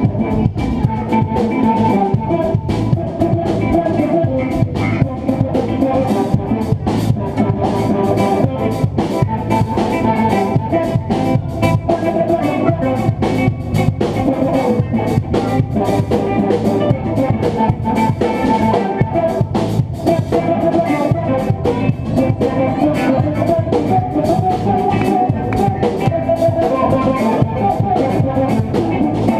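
Live band playing a song, with a drum kit keeping a steady beat under guitar.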